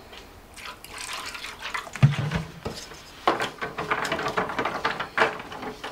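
Apple cider vinegar poured from a plastic jug into a disposable aluminium foil pan of barbecue sauce, then a knock about two seconds in. From about three seconds in, a wooden spoon stirring and scraping the sauce around the crinkly foil pan in short repeated strokes.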